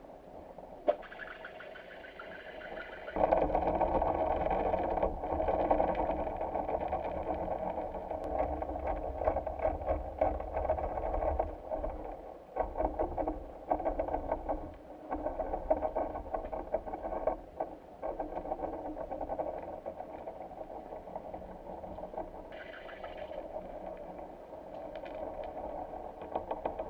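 A motor-driven engine running steadily with a low rumble and scattered clicks, growing louder about three seconds in.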